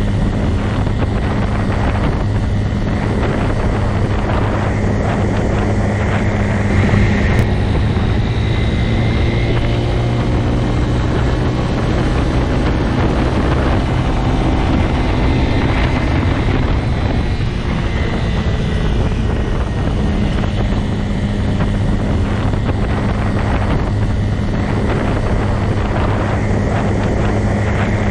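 Motorcycle engine running steadily, a continuous low drone with no marked revving.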